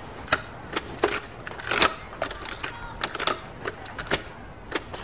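Masking tape being pulled off the roll and torn while strips are stuck down, giving an irregular run of sharp clicks and crackles, about three or four a second, with a denser crackle a little under two seconds in.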